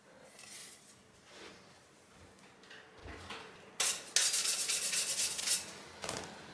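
A brush scrubbing the inside of a graphics card's perforated metal backplate. A few faint rubs come first, then a click, then about a second and a half of fast, rasping back-and-forth strokes about four seconds in.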